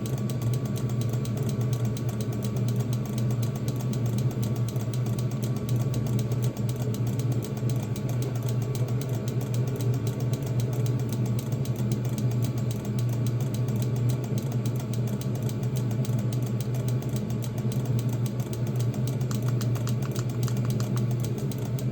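Diesel heater running steadily on its low setting: a constant low hum from the blower and burner with a fast, fine mechanical ticking over it. It is holding its flame on low with the modified burn chamber.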